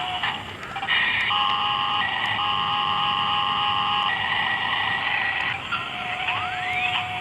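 Electronic beeps and held buzzer-like tones at a few pitches, switching on and off in steps, with a rising sweep near the end.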